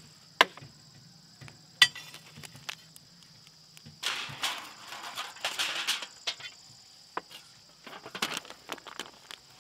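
Biryani being scooped with a steel ladle from a large metal pot into aluminium foil takeaway trays. Two sharp knocks come in the first two seconds, then bursts of crinkling and scraping as the foil trays are filled and handled, about four seconds in and again near the end.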